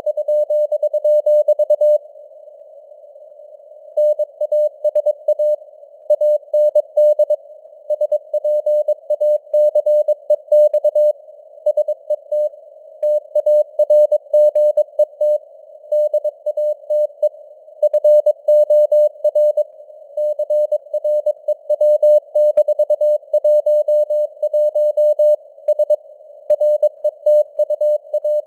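Morse code sent at 22 words per minute: a single mid-pitched tone keyed on and off in dots and dashes over a narrow band of simulated radio hiss. There is a pause of about two seconds near the start.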